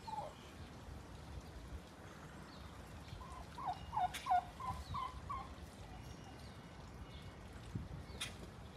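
Domestic turkey gobbling: a short call right at the start, then a gobble a few seconds in, a rapid run of warbling notes lasting about two seconds.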